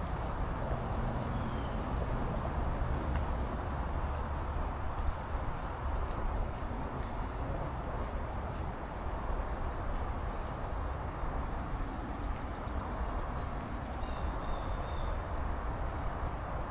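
Steady wind blowing through the forest trees and rumbling on the microphone.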